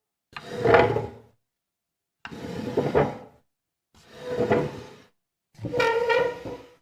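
Wooden drawer sliding open and shut, four strokes of about a second each with short pauses between.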